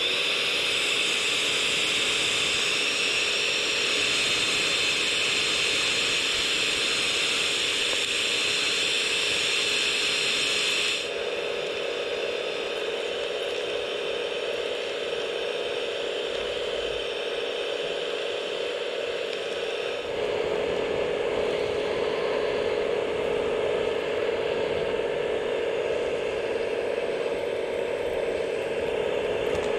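Earth auger on a radio-controlled Liebherr A918 excavator drilling a hole in gravelly soil. The drive gives a steady mechanical whine with a gear-like grind, and its tone and loudness shift about eleven seconds in and again about twenty seconds in.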